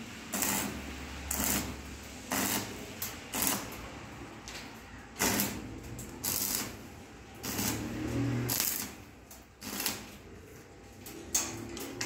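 Arc welder laying short tack welds on a steel drum: about a dozen irregular bursts of crackling, each under a second, with short pauses between them.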